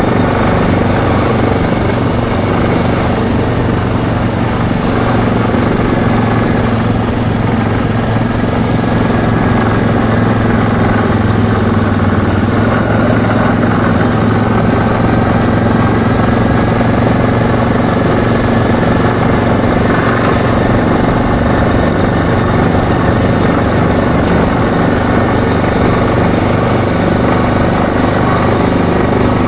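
ATV engine running steadily at cruising speed, heard from on board while riding, with a constant drone and no changes in pitch.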